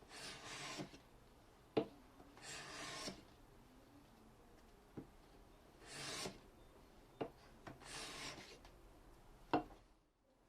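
Four rasping strokes of a steel hand tool, each under a second and a couple of seconds apart, with sharp clicks in between.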